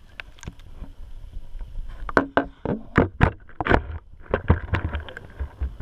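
Underwater sound inside a turtle tank picked up through a GoPro's waterproof housing: a low rumble with a run of irregular sharp knocks and taps from about two seconds in.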